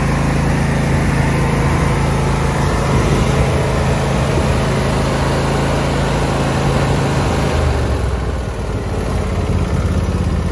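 Husqvarna riding lawn tractor's engine idling steadily. About eight seconds in, its note shifts lower.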